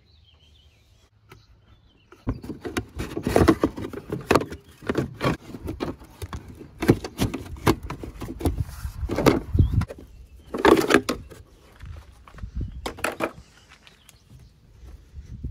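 Plastic battery box being unbolted and pulled out of the engine bay: an irregular clatter of knocks, clicks and thuds, starting about two seconds in and dying away near the end.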